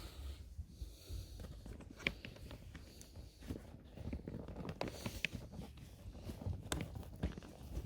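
Faint scattered clicks and knocks of pannier bags being handled and clipped onto a bicycle's rear rack.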